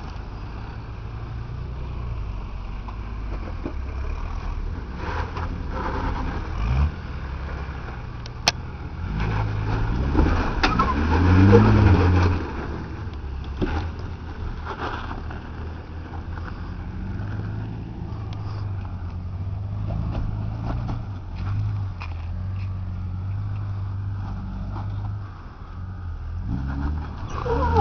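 Toyota Land Cruiser 80 series engine pulling at low revs as it crawls up rock steps. The revs rise briefly about a third of the way through, with scattered knocks throughout.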